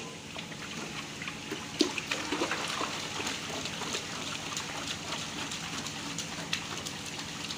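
Water dripping and trickling back into a metal pot as a fine nylon mesh net holding fish spawn is lifted and drained, with many small irregular splashes.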